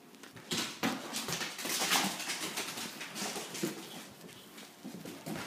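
Puppy being riled up into play: scuffling and rustling with small whimpering sounds from the puppy.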